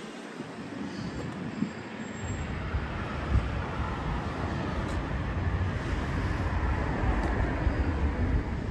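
Vehicle noise in the street: a low rumble and road noise that builds up about two seconds in and then holds steady.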